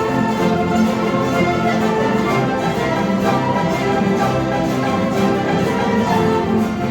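String orchestra with violins and other bowed strings playing a melody in held notes, with a steady fullness of sound.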